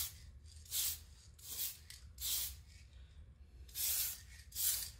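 Aerosol spray paint can sprayed in six short bursts of hiss into a clear Lexan RC car body.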